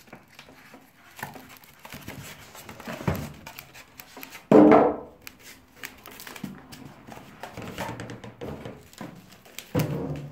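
Polystyrene foam packing blocks being pulled off a plastic-wrapped machine and handled: foam rubbing and squeaking, with one loud squeak about four and a half seconds in. Near the end come knocks and a rustle of plastic wrap as the wrapped machine is lifted and set down.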